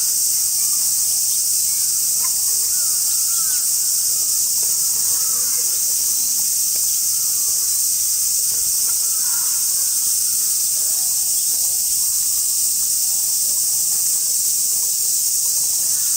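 Steady, high-pitched hiss of an insect chorus, with faint short chirps and calls underneath.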